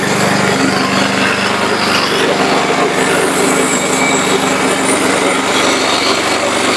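Engine of a remote-controlled, self-propelled flail mower running steadily while it mows, with a constant engine tone and a dense rushing noise over it.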